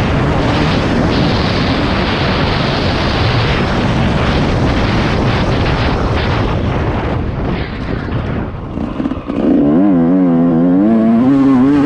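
Yamaha YZ 144 two-stroke dirt bike engine running hard under throttle, with wind buffeting the helmet microphone. About nine seconds in the noise dips, then gives way to a pitched drone that wavers up and down in pitch.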